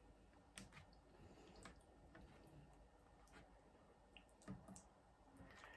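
Faint eating sounds: scattered soft clicks as a fork works through pasta bake in a foil tray and the food is chewed, over near silence.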